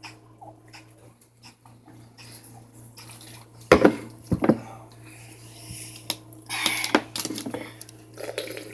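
Two short, loud burps close together about four seconds in, with light clinks and knocks of drinkware being handled around them.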